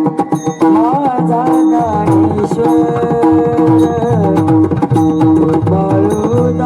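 Devotional Marathi abhang music without words: tabla in a steady rhythm, the bass drum's strokes sliding down in pitch, under a held melody line that bends through a few ornaments about a second in.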